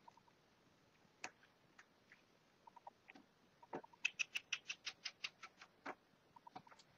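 Faint clicking and scratching of a small screwdriver turning tiny screws into the plastic case of a Nokia N900 mobile phone, with a quick run of about seven clicks a second in the second half.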